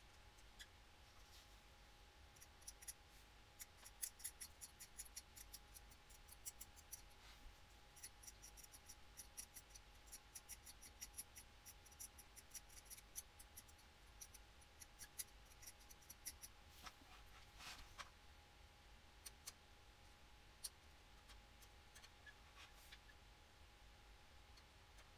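Faint scraping of a knife blade on hard plastic, taking dried CA (super) glue off a broken toy's plastic jaw: two long runs of quick strokes in the first half, then scattered single scrapes.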